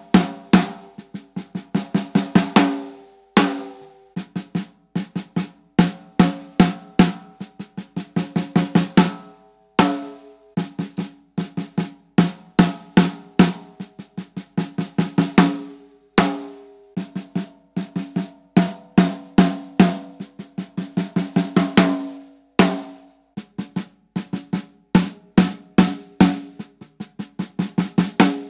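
Snare drum played with wooden sticks: the same short phrase of strokes and rolls, with snare buzz and a ringing drum tone, repeated about every six and a half seconds. Each repeat is on a different Evans coated head, including the double-ply ST, the pre-dampened Power Center Reverse Dot and the pre-dampened Genera.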